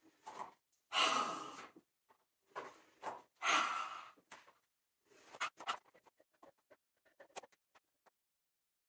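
A woman breathing out forcefully through a wide-open mouth: two long, loud breaths about two and a half seconds apart, with shorter breaths before and after, then softer short breaths and scuffs.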